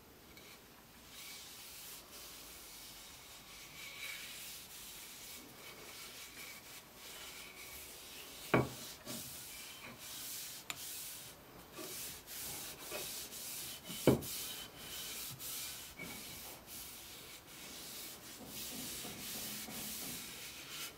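Hand sanding: sandpaper rubbing in irregular back-and-forth strokes, with two sharp knocks about eight and a half and fourteen seconds in.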